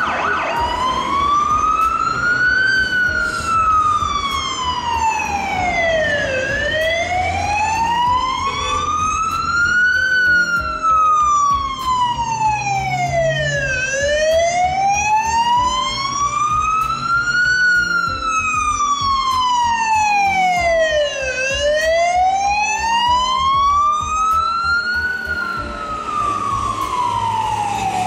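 Emergency vehicle siren in a slow wail, its pitch rising and falling smoothly, about seven and a half seconds per rise and fall, nearly four times over.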